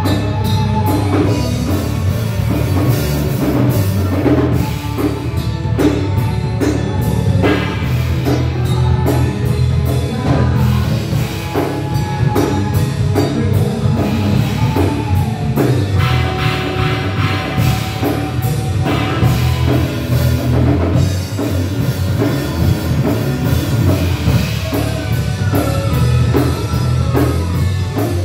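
A live band playing: a drum kit keeping a steady beat under electric guitar and keyboard.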